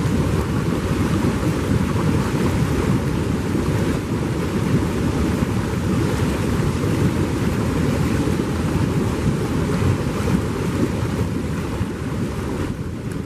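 Hot tub jets churning the water: a steady rushing, bubbling noise with a heavy low rumble.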